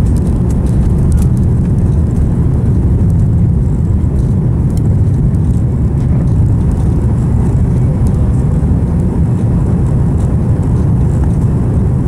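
Cabin noise of an Airbus A340-300 at takeoff, heard from a seat over the wing: a loud, steady, deep rumble from its four CFM56 engines at takeoff thrust and the takeoff roll, carrying on as the airliner lifts off.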